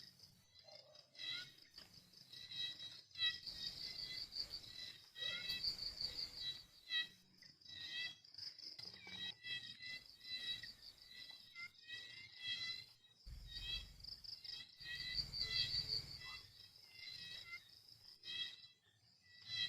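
Crickets chirping in short, pulsed trains repeated about every second, with a brief low rumble about two-thirds of the way through.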